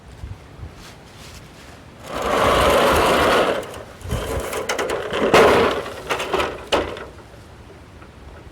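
A length of rain gutter being handled and set down: a rattling scrape for about a second and a half, then several knocks and clatters.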